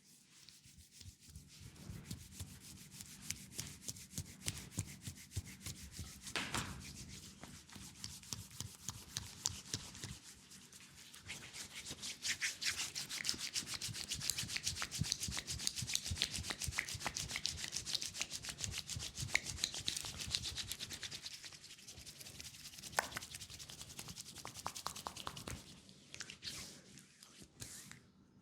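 Hands rubbing and working a leg in a fast massage, with rapid strokes one after another. The strokes grow louder around the middle and ease off near the end.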